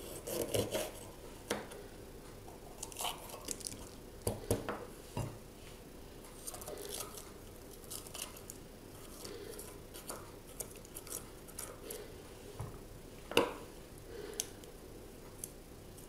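Small kitchen knife cutting into and scraping out the stem end and seeds of green sweet peppers, giving irregular crisp crunches and clicks, the sharpest about thirteen seconds in.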